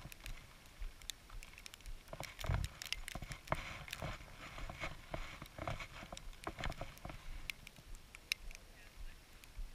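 Scattered crunches and clicks of footsteps and movement in packed snow, thickest with a few low thumps a few seconds in.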